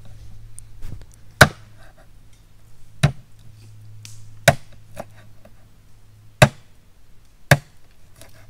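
Chopping with a blade: five sharp strikes spaced one to two seconds apart, with a couple of lighter taps between, over a steady low hum.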